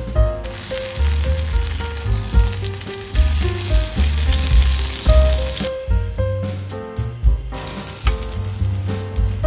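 Egg-and-Parmesan-coated chicken breast sizzling as it fries in butter and olive oil in a pan; the sizzle dies down about six seconds in and comes back near the end. Background music with a bass line plays under it.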